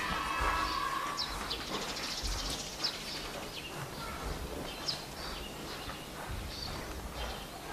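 Hall ambience with a few short, high bird chirps and occasional soft low thuds.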